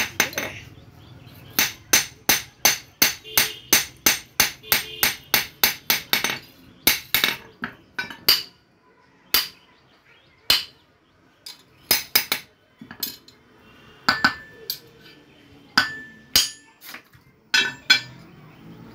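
Blacksmith's hand hammer striking metal at the anvil. A quick run of ringing blows comes at about three a second, then slower, scattered strikes.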